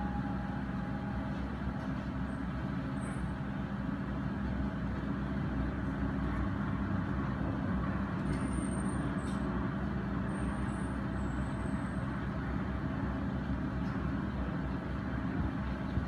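Diesel engine of a Komatsu hydraulic excavator running steadily as it digs, a constant low drone with a steady hum.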